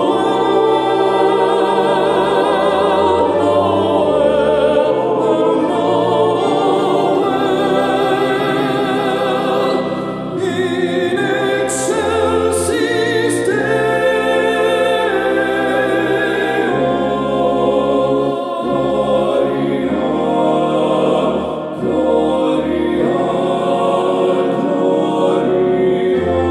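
Choral arrangement of sacred Christmas hymns: several layered voices singing sustained notes in harmony with vibrato, over steady low bass notes.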